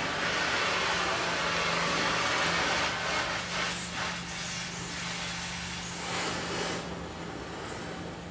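Oxy-acetylene cutting torch flame hissing steadily, with the high part of the hiss dropping off sharply near the end. A steady low hum runs underneath.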